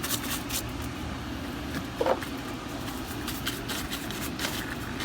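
Rust neutralizer being scrubbed onto a rusty exhaust manifold, a run of short, uneven scratchy strokes, with a brief squeak about two seconds in.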